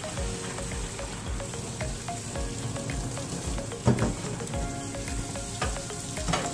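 Oil sizzling in a carbon steel skillet, with two sharp knocks, the louder about four seconds in and another near the end. Background music with a steady beat runs underneath.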